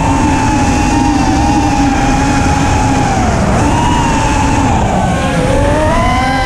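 FPV racing quadcopter's motors and propellers whining, the pitch dipping and climbing again with the throttle, about three and a half and five seconds in, over a rush of wind on the onboard camera's microphone.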